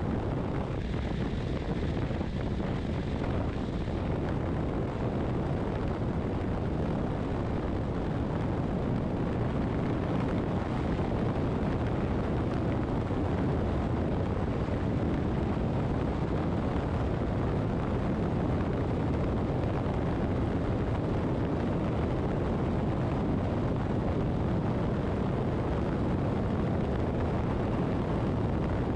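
Motorcycle cruising at a steady highway speed: a constant rush of wind over the microphone, with engine and tyre noise blended into it.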